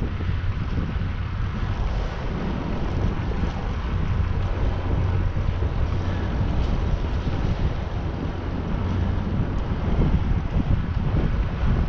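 Steady rushing of wind on the microphone of a camera riding on a moving bicycle, a heavy low rumble with no distinct events.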